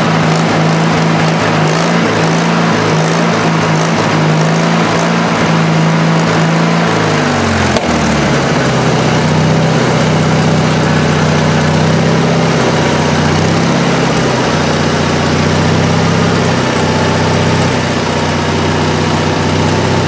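The engine of a Mighty Mite band sawmill running under load as its band saw rips a squared Alaska yellow cedar log lengthwise. About eight seconds in, the engine's pitch slides down, with one sharp click, and then wavers at the lower speed.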